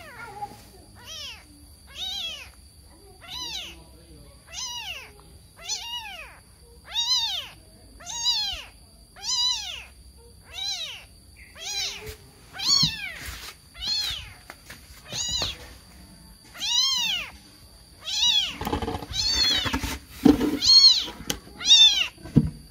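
Very young kitten meowing over and over, about one call a second, each call rising then falling in pitch: a kitten calling for its missing mother. In the last few seconds a low noise comes in under the calls.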